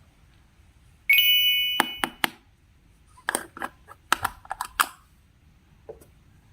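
A sudden bright ringing ding about a second in that fades away over about a second, followed by sharp clicks and then a quick run of clicks and taps.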